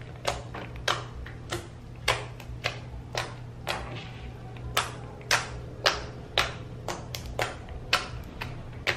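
Homemade slime being pressed and kneaded by hand, giving a run of sharp wet clicks and pops, about two a second, as air trapped in the slime bursts under the fingers.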